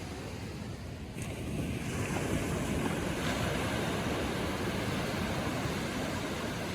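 Gentle ocean waves breaking and washing up a sandy beach. The surf swells a second or two in, then eases off toward the end.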